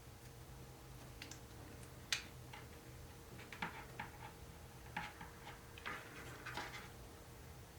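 Scattered light clicks and taps from small plastic and metal parts and tools being handled while assembling a Tamiya TA02S radio-controlled car kit, the sharpest about two seconds in and the rest in small clusters later on.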